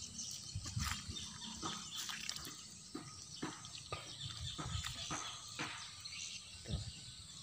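Footsteps and rustling among potted seedlings and dry fallen leaves: irregular soft knocks and clicks, with a few heavier low thumps.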